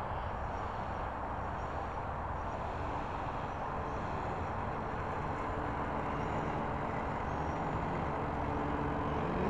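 Wind buffeting the microphone in a steady rumble. In the second half, a faint steady motor tone comes in as the RC model biplane taxis across the pavement.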